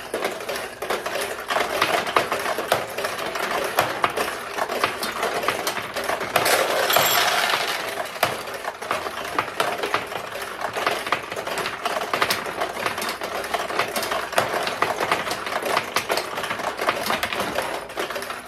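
1973 Nishijin Model B pachinko machine in play: steel balls launched one after another and clattering down through the pins, a quick run of metallic clicks and rattles. A denser, louder rush of clattering about seven seconds in.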